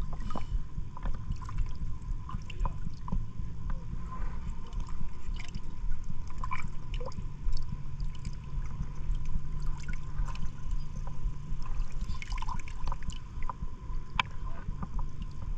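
Water sloshing and lapping around an angler wading in a pond, with a steady low rumble and many small scattered splashes and drips as he handles his catch over a floating bucket.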